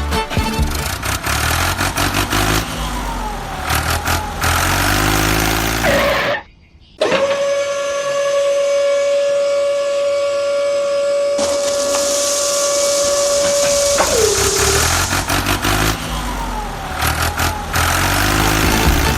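Truck engine running and revving. About seven seconds in it gives way to a long, steady, horn-like tone that slides down in pitch as it ends, and then the engine sound comes back.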